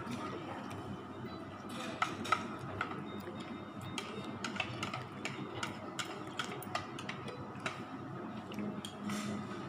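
A soup spoon clinking and tapping against ceramic bowls and plates while eating: a series of short, sharp clicks, the two loudest about two seconds in, over a low murmur of room noise.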